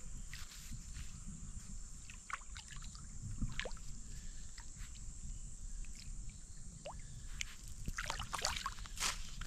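Water splashing and sloshing in shallow river water, in short irregular splashes that come thicker near the end, over a steady high hiss and a low rumble.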